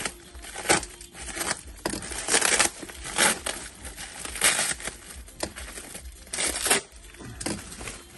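Clear plastic packing wrap rustling and crinkling in irregular bursts as it is pulled and crumpled by hand while a parcel is unpacked.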